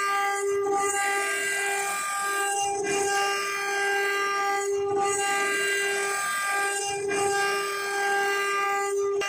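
CNC router spindle running at a steady high-pitched whine while its bit cuts into a water-cooled marble slab, with a hiss of cutting and spraying coolant that changes about every two seconds as the tool moves.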